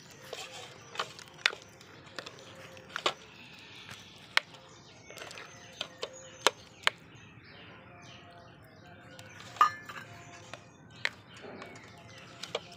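Steel spoon stirring a thick egg-and-flour batter in a glass bowl, clinking against the glass about ten times at uneven intervals, with softer scraping between the clinks.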